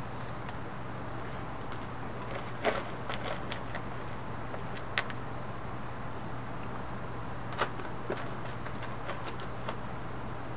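Control-room room noise over a live broadcast feed: a steady hum and hiss with scattered sharp clicks and taps, a cluster about three seconds in and another run in the second half.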